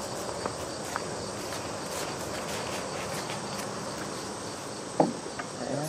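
Steady insect buzz, with a few faint clicks and one short knock about five seconds in as the hydraulic cylinder is fitted to the backhoe arm.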